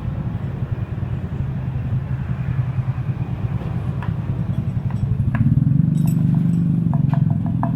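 A small motorcycle engine running steadily, getting louder about five seconds in. Near the end a quick run of sharp, ringing clicks joins it.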